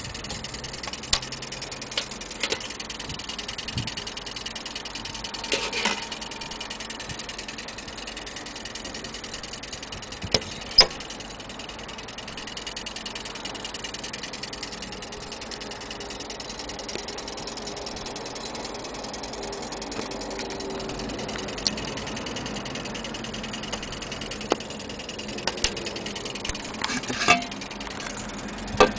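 Steady background hum with a scattering of short, irregular clicks and knocks.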